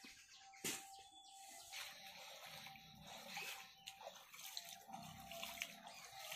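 Faint hiss and bubbling of chopped tomatoes cooking in a small aluminium pot over a wood fire, with a steady faint tone underneath. One sharp click a little under a second in is the loudest sound.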